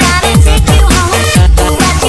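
Loud electronic breakbeat dance music with deep bass notes that drop in pitch several times a second under a busy beat.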